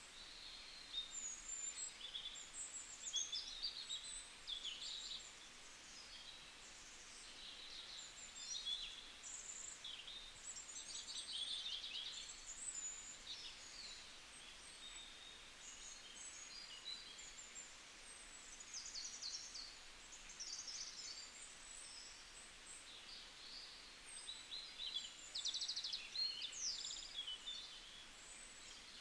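Several small birds chirping and trilling over one another, some calls in quick rapid-fire trills, above a faint steady hiss of open-air background noise.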